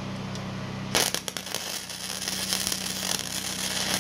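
Flux-core (gasless) wire-feed welder arc crackling as a lap weld is run on overlapped thin sheet steel. It strikes suddenly about a second in, crackles for about three seconds, and stops abruptly.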